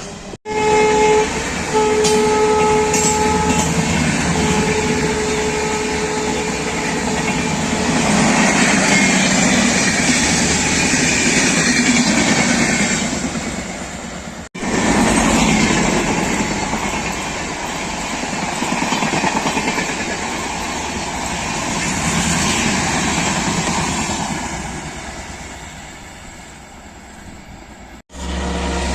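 Train horn sounding for several seconds, broken briefly twice, over the noise of a passing train. The train's running noise continues and fades away over the last few seconds.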